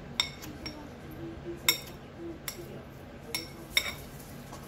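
Metal spoon clinking against a glass cereal bowl about six times while scooping cereal and milk. The clinks are short and sharp, each with a brief bright ring, and come irregularly every half second to a second.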